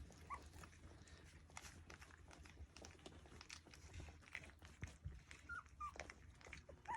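Three-week-old sheepadoodle puppies giving a few faint, short, high squeaks: one just after the start and two close together near the end, over scattered soft clicks.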